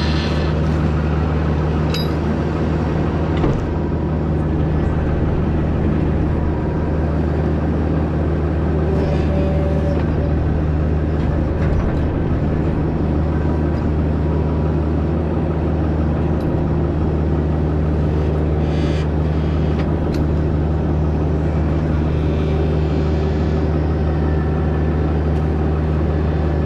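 A diesel engine running steadily at constant load, with a few faint clicks and knocks over it.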